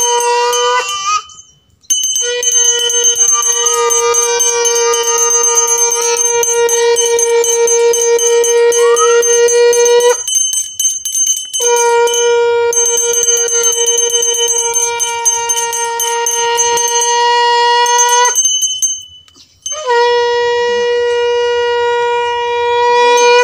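Conch shell (shankha) blown in long, steady, horn-like blasts, each held for several seconds with short breaks for breath between them, as a ritual call during a Hindu puja.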